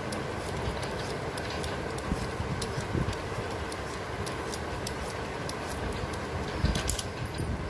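Handheld Y-peeler scraping the skin off a raw potato, giving many small irregular scratchy clicks over a steady background hum.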